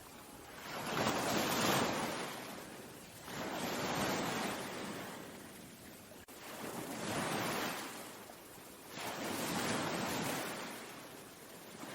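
Ocean waves surging in and falling back, four swells about every three seconds.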